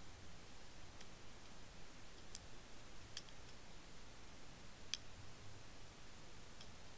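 Faint steady hiss with a handful of sharp clicks at irregular times, the loudest about five seconds in, picked up by a submerged underwater fishing camera.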